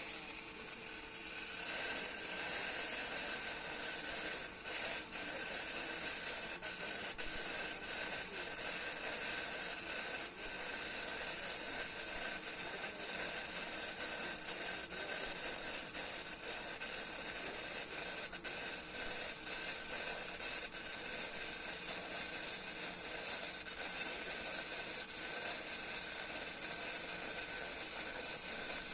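Electric arc welding on a pipe joint in the 6G position: the arc runs as a steady hiss with a faint crackle, held without a break.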